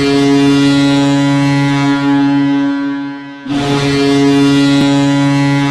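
Hockey arena goal horn sounding two long, low blasts. The first fades out about three seconds in, and the second starts half a second later.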